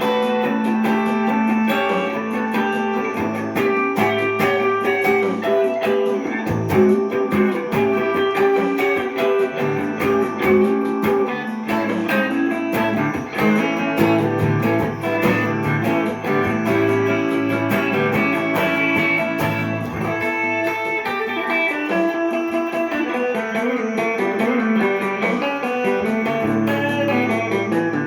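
Gibson ES-339 Custom semi-hollow electric guitar improvising in a jazzy tone with Eastern, Indian-flavoured melodic lines. A run of picked notes plays over held low notes.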